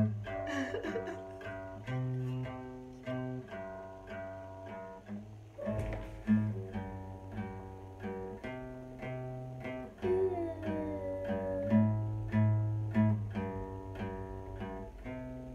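Acoustic guitar strummed in a steady rhythm, chords changing every second or two.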